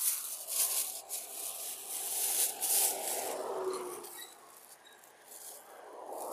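A thin plastic carrier bag rustling and crinkling as it is handled around a caught fish. It comes in bursts over the first three seconds or so, then grows quieter.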